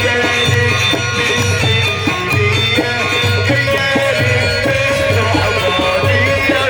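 Egyptian simsimiyya folk music played by a band: an instrumental passage with sustained melody lines over a steady, regular drum beat.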